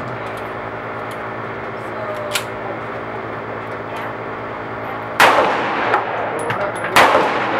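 Two shots from a Tokarev TT-33 pistol in 7.62×25mm, about two seconds apart in the second half, each followed by a long echoing tail. A fainter sharp crack comes earlier, about two seconds in.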